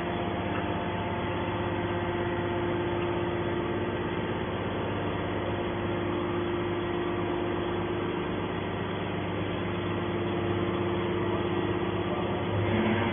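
Hydraulic scrap-metal baler's motor and pump running with a steady hum.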